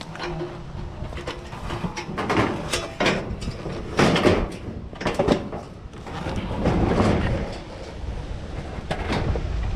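Sheet-metal kitchen stove clanking and rattling on a hand truck as it is tipped and wheeled, with irregular knocks several times over a low rolling rumble.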